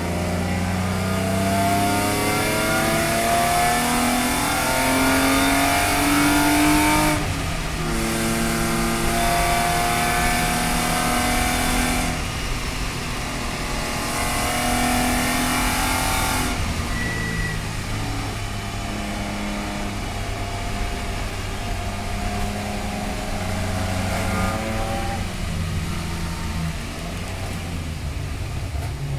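Race car engine heard from inside the cabin, accelerating hard through the gears with its pitch climbing, dropping at upshifts about 7 and 12 seconds in. After about 16 seconds it comes off full throttle and the engine speed falls as the car slows.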